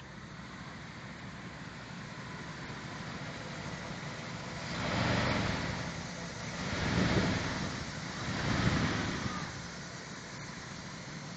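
1996 Dodge Ram 1500 engine idling, warmed up after a new thermostat and radiator. It swells louder three times around the middle.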